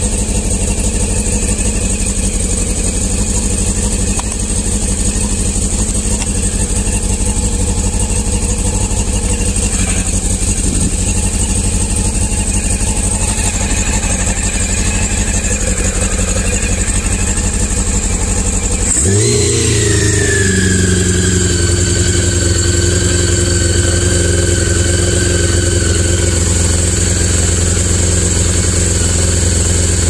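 Four-carburettor motorcycle engine idling while its carburettors are being synchronised. About two-thirds of the way through, the engine speed jumps up sharply and then holds at a higher speed, easing down slowly.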